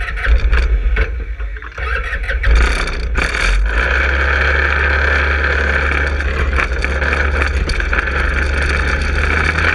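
Manco Helix 150 go-kart's 150cc engine, heard close up from on board: it runs unevenly at first, revs up about two and a half seconds in, then holds a steady drone as the kart drives off along the road.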